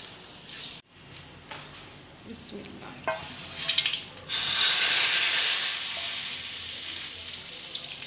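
Hot tadka of oil, cumin seeds, bay leaf and red chilli sizzling in a small pan, followed by a quieter stretch with a short knock. About four seconds in, the tadka is poured over cooked chana dal and bursts into a loud hiss that slowly dies down.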